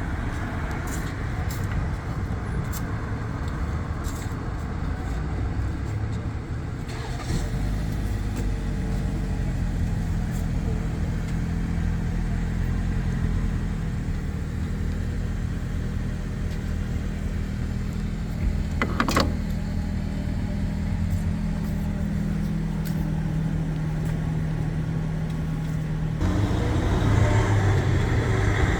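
Street traffic, with a motor vehicle's engine running steadily close by for most of the stretch; a short sharp sound about two-thirds of the way through; the traffic grows louder near the end.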